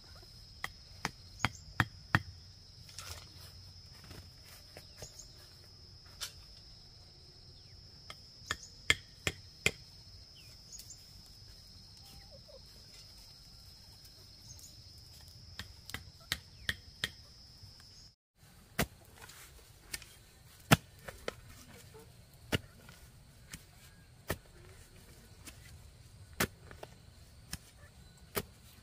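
Sharp knocks of a wooden block hammering a thin stake into the ground, in quick runs of a few strikes. After about two-thirds, single chopping thuds of a spade cutting into the soil every second or two. A steady high insect drone runs under the first part and stops at the cut.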